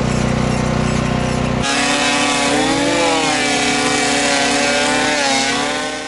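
Loud, steady power-tool or engine noise. About a second and a half in it changes abruptly to a second machine sound whose pitch drifts up and down.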